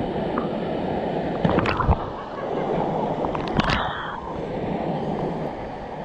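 Steady rush of a waterfall pouring into a pool, heard from just above the water's surface, with splashes about two seconds in and again about a second and a half later as a person jumps off the rock ledge into the pool.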